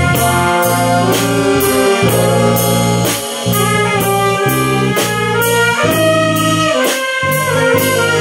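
Small brass band of saxophones, trumpets, trombone and baritone horn playing a sustained melody together, over a steady drum-kit beat.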